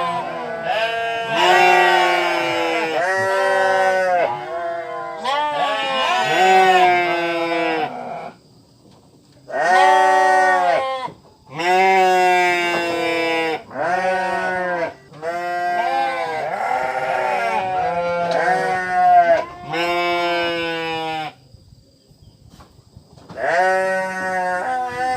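Sheep bleating over and over in long, quavering calls, one after another, with two short pauses.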